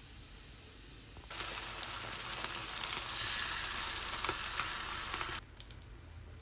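Cubes of Singaporean fried carrot cake (steamed radish-and-rice-flour cake) sizzling in hot oil in a non-stick frying pan as beaten egg is poured over them, with scattered crackling pops. The sizzle starts abruptly about a second in and drops away sharply near the end.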